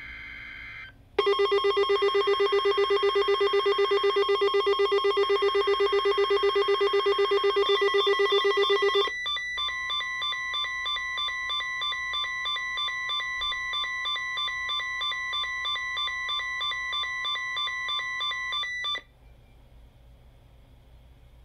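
Weather radio alert tones for the weekly test activation, with the tail of a screechy data burst at the start. Then a loud, rapidly pulsing buzzy alarm sounds for about eight seconds. It is followed by a higher, thinner beeping of about three beats a second that runs for about ten seconds and cuts off suddenly.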